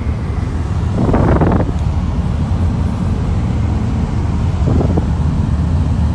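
Steady low road and engine rumble inside a car moving at highway speed, with two brief louder gusts of wind noise on the phone's microphone, about a second in and again near five seconds.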